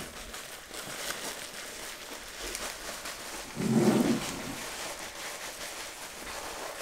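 Faint rustling and small clicks of a chrome car emblem and its packaging being handled on a table, with a short low sound about four seconds in.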